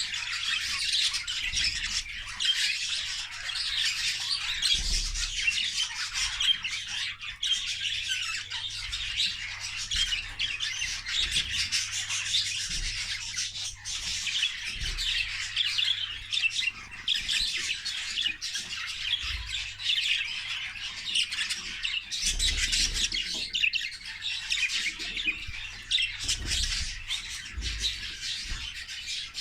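English (exhibition) budgerigars chattering and squawking together without a pause, many high chirps overlapping.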